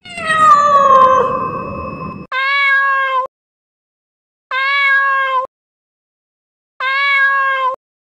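Domestic cat meowing: one long, drawn-out meow that slides down in pitch, then three identical short meows about two seconds apart.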